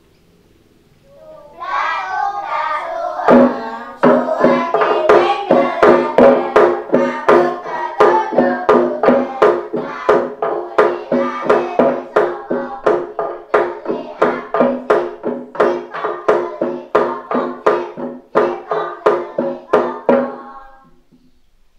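Children singing a game song, joined after a couple of seconds by regular percussive strikes about twice a second; the music stops shortly before the end.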